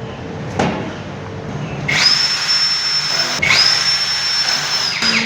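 Power drill running in two bursts of about a second and a half each, each spinning up quickly to a steady high whine, with a short pause between. A light knock comes about half a second in, before the drill starts.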